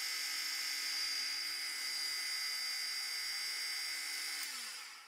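Manual lathe running with a steady high whine during a boring cut with a small boring bar. Near the end the whine drops in pitch and fades as the lathe slows.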